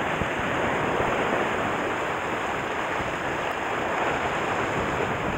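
Sea waves washing against the shoreline rocks: a steady rushing wash.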